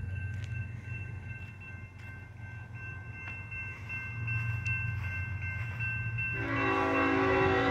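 Diesel freight locomotive approaching with a steady low rumble, under the steady high tone of the grade-crossing warning bell. About six seconds in, the locomotive's air horn starts blowing loud, a chord of several notes held to the end.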